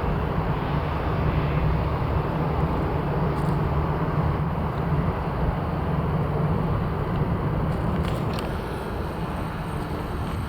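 Jet airliner engines running, a steady low rumble with hiss above it.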